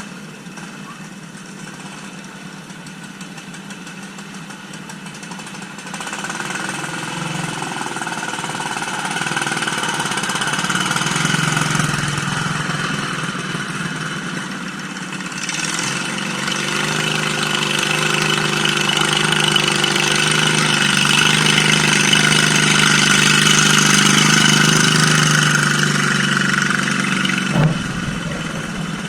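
Engine of a mud mower (a modified riding lawn mower) running steadily, getting louder about six seconds in and louder again past the middle before easing off, with a short knock near the end.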